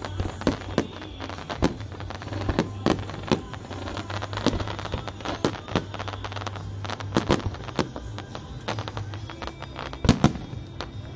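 Fireworks display: aerial shells bursting in quick, irregular succession, several bangs a second with crackle between them, and a pair of louder bangs about ten seconds in.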